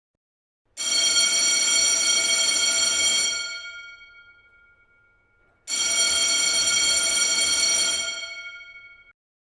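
Old-style electric telephone bell ringing twice, each ring lasting about two and a half seconds and fading away as the bell rings on.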